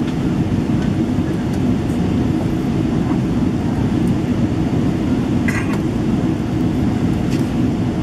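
Steady cabin noise of a Boeing 777-300ER in flight: a low, even rumble of engine and airflow noise. A brief faint clink sounds about five and a half seconds in.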